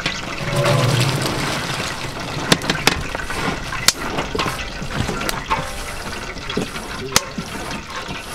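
Sliced red onions tipped off a large metal tray into a big pot of hot oil, sizzling steadily, with a few sharp clicks as the last slices are brushed off the tray.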